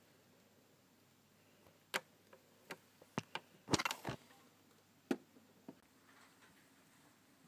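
Scattered clicks and knocks of handling noise as a phone camera and a plastic toy blaster are moved, with a quick cluster about four seconds in, over quiet room tone.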